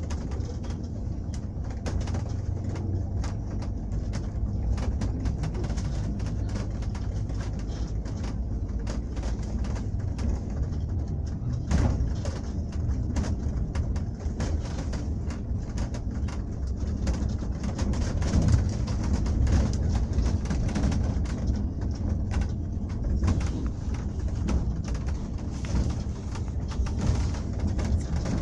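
Low, steady engine and road rumble inside a moving vehicle, with frequent small rattles and knocks.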